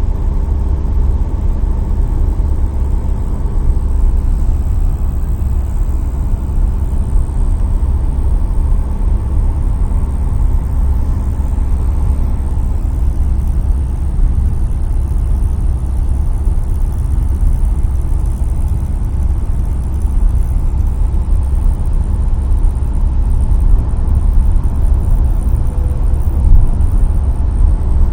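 Skoda Octavia III running, heard close to the accelerator pedal area: a steady low engine and car rumble with a rattle that shows up at around 2000 rpm.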